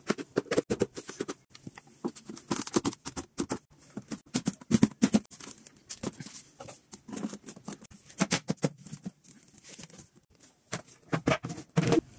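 The light white board panels of a collapsible display pedestal being unfolded and slotted together by hand: an uneven run of clicks, knocks and scrapes, with a short lull and then a louder cluster of knocks near the end.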